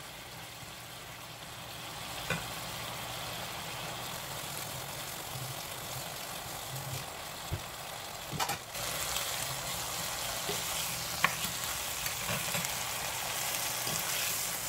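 Slices of smoked picnic ham sizzling steadily as they fry in a square nonstick frying pan, with a few sharp ticks. The sizzle grows a little louder a bit past halfway.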